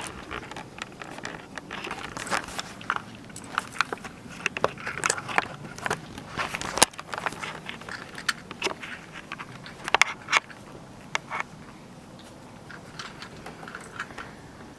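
Footsteps and scuffs on wooden tower boards: irregular clicks, crackles and scrapes, with a sharper knock about seven seconds in and two more about ten seconds in.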